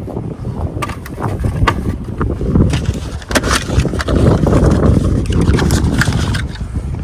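Clicks, knocks and scrapes of tools and parts being handled during an oil change, over a heavy rumble of wind on the microphone; the clicks come thickest from about two and a half to six and a half seconds in.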